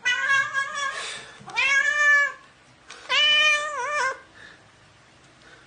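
A cat meowing: three drawn-out meows, the second rising and falling in pitch and the last wavering at its end.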